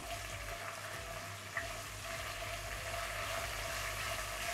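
Hot oil sizzling steadily in a nonstick pan as curry leaves, green chillies, garlic, cashews and dals fry in it and are stirred with a silicone spatula, with one light tap about a second and a half in.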